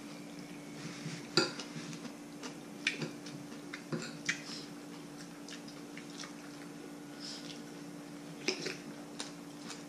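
Metal spoons clinking now and then against bowls and plates during a meal: a few scattered clinks over a steady low hum.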